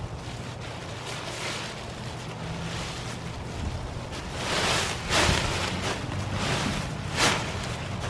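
Wind buffeting the microphone while the Dyneema fabric of an ultralight trekking-pole tent rustles and crinkles as it is unfolded and lifted. There are louder swells of crinkling about halfway through and a short sharp rustle near the end.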